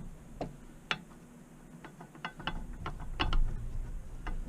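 Sharp metallic clicks and taps of brake pads and their spring being fitted into a motorcycle's rear brake caliper, a few at first, then a quick run of them.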